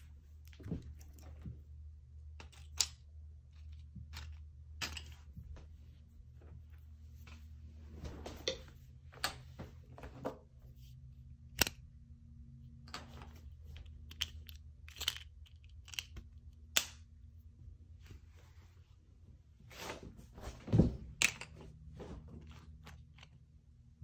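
Scattered sharp clicks and knocks from small objects being picked up and handled, a dozen or so, the loudest about halfway through and again near the end, over a steady low hum.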